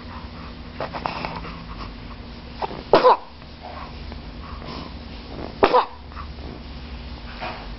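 A baby sneezing twice, about three seconds apart, each sneeze short and sharp.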